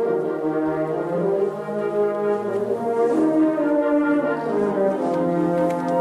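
Symphonic wind band playing held chords with the brass to the fore, the harmony moving on every second or so.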